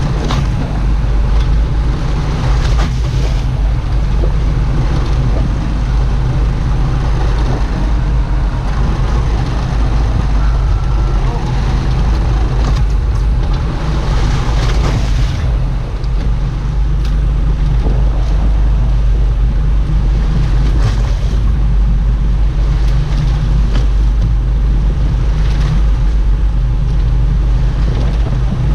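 A boat's engine running steadily under way, with wind and rushing water over it.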